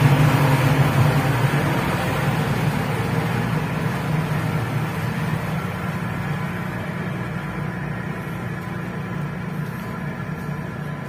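Steady low hum of a large ferry's running machinery, with a faint steady whine above it, slowly growing quieter.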